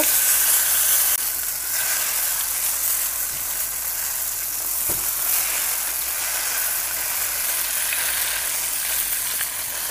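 Whole eggplants frying in hot oil in a kadhai, sizzling with a steady high hiss as they are turned over. There is one brief knock about five seconds in.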